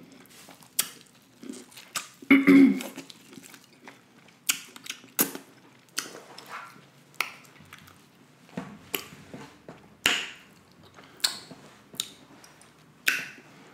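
Close-miked chewing of buttery corn on the cob: a string of short wet smacks and mouth clicks, with a brief hummed "mm" about two and a half seconds in.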